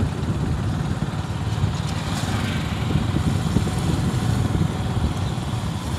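Motorcycle engine running steadily while riding along a road, mixed with wind rumble on the microphone.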